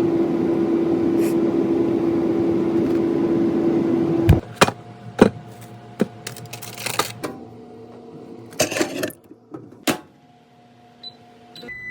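Microwave oven running with a steady hum, which stops abruptly about four seconds in. A series of sharp clicks and knocks follows.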